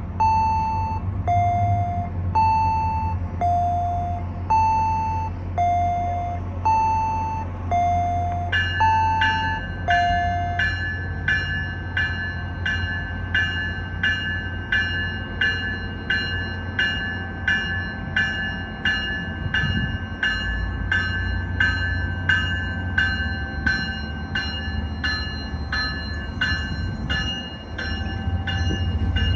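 An MBTA commuter train stands at the platform with a steady low hum. An electronic warning tone alternates between a high and a low note about once a second, then about nine seconds in gives way to a bell ringing about twice a second, as the train is about to depart.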